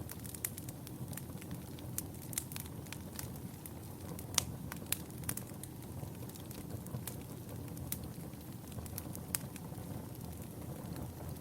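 Wood fire burning in a fireplace: a steady low rumble of flames with irregular sharp crackles and pops, the loudest about four and a half seconds in.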